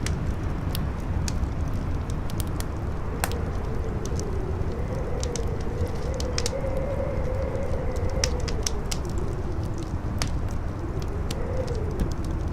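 Wind howling in a slow tone that rises and falls, over a steady low rush of wind, with a fire crackling in frequent irregular snaps and pops.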